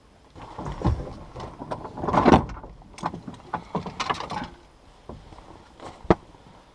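Knocking and scraping in a rowboat, a string of irregular clatters loudest about two seconds in, then one sharp knock near the end.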